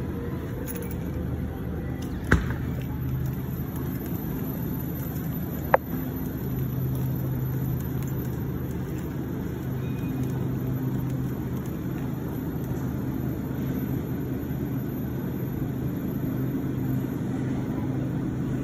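Steady low hum of a grocery store's background, with refrigerated display cases and ventilation running. Two sharp clicks come about two and six seconds in.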